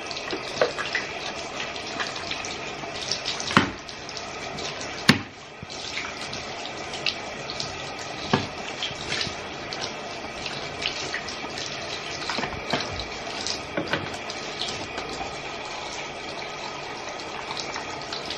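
Warm tap water running from a bathtub faucet and splashing over a plastic model tank hull held in the stream. A few sharp knocks come through, the loudest about three and five seconds in.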